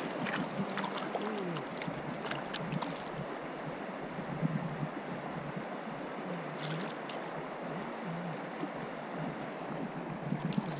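Stream water running steadily, with a few light clicks in the first few seconds and again about seven seconds in.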